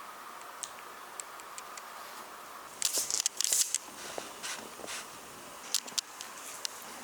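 Light clicks and short bursts of rustling over a steady hiss, the loudest burst about three seconds in and a smaller one near six seconds.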